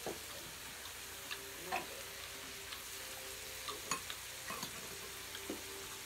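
Pieces of meat sizzling steadily on a tabletop grill pan, with a few light clicks of chopsticks against the pan and dishes.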